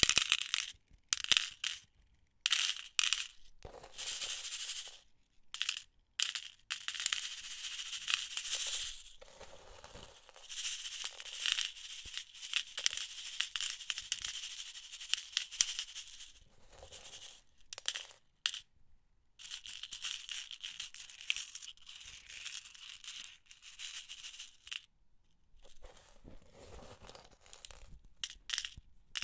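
A box of metal office pins shaken and tipped, the many small pins rattling and sliding against each other in a series of bright, stop-start rattles of uneven length, with short silences between them.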